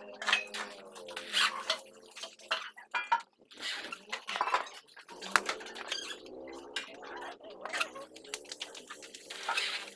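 Corded electric drill worked against a wooden frame, its motor whine rising and falling in short runs, with sharp clicks and knocks from the tool and wood.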